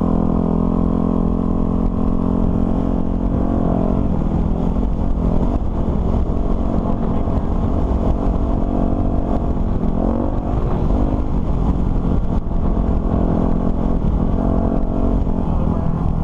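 Dirt bike engine running under load along a dirt track, its pitch climbing and dropping several times as the rider opens and closes the throttle.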